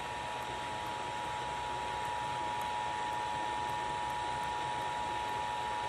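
Emergency Alert System attention signal, the steady two-tone beep of 853 and 960 Hz, sounding continuously over the hiss of FM radio reception.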